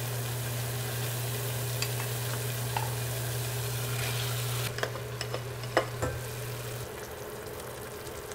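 Water boiling in a stainless steel pot, a steady bubbling hiss with a low hum under it. About five seconds in it turns quieter and a few light knocks sound against the pot as minced beef is added.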